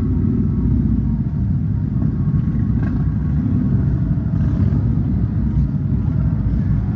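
A group of motorcycles riding past one after another, their engines making a steady low rumble.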